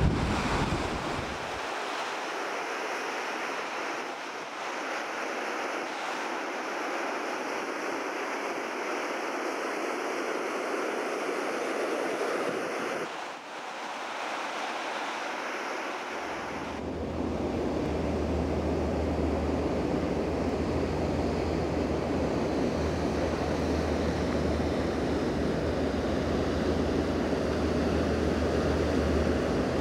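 Ocean surf breaking and washing, a steady rushing noise, with wind buffeting the microphone; a low wind rumble joins a little past halfway.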